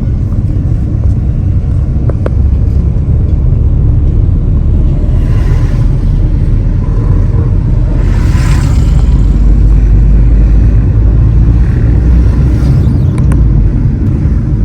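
Car driving along a road, heard from inside the moving vehicle: a steady loud low rumble of engine and tyres, with brief hissing swells about five and eight seconds in.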